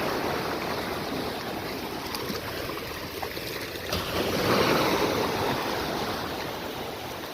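Sea waves washing onto the beach, a steady rush that swells about four seconds in as a wave comes in, then eases off.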